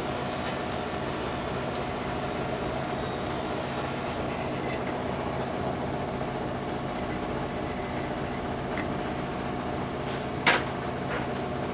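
Steady mechanical hum of a running machine, holding a constant pitch, with one sharp click near the end.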